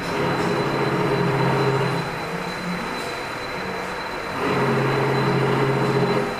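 Flour packing machine running with a steady high whine. A louder motor hum comes in twice, each time for about two seconds, once at the start and again past the middle.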